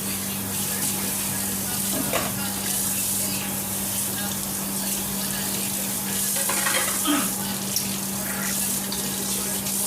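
Food sizzling in hot oil in a frying pan, a steady hiss, with a few brief stirring scrapes about two seconds in and again near the middle, over a steady low hum.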